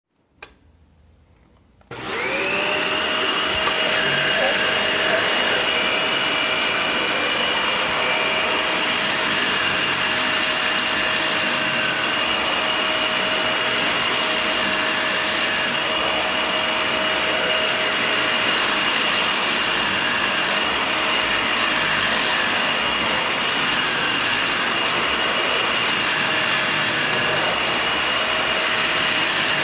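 Vacuum cleaner switched on about two seconds in, its motor whine rising quickly to speed and then running steadily over a shaggy rug. A single click comes just before it starts.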